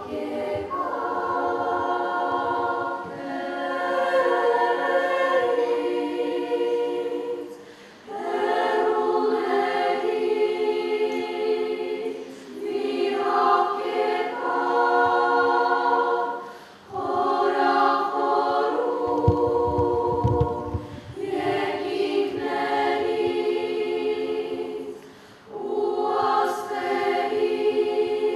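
Children's choir singing, in phrases broken by short pauses for breath.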